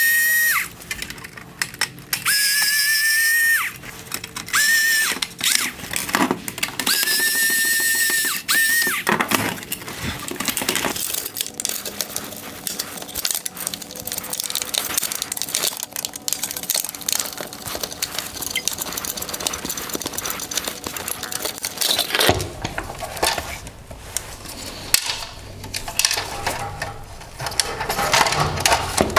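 Cordless power screwdriver running in four short bursts with a steady high whine as it drives out four T15 Torx screws from a plastic headlight housing. After that, the plastic housing and its parts are lifted and handled, with many small clicks and rattles.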